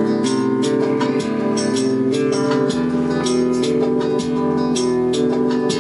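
Guitar-led music with regular percussion playing through a Waldman TC715DX bi-amplified active speaker. This is its test playback after a repair to a hairline crack in a circuit-board trace, the fault that had made it play quietly.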